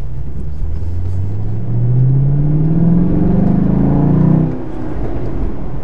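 2017 Chevrolet SS's 6.2-litre LS3 V8 accelerating, heard from inside the cabin: the engine note climbs steadily for about four seconds, then drops away.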